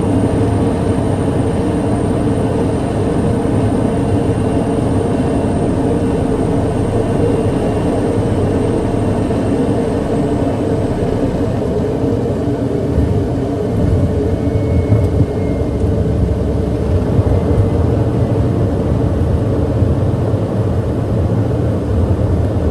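TBM 700A single-engine turboprop, its Pratt & Whitney PT6A engine and propeller giving a loud, steady drone heard from inside the aircraft. A thin high whine fades out about ten seconds in, and the noise turns more uneven in loudness over the last third.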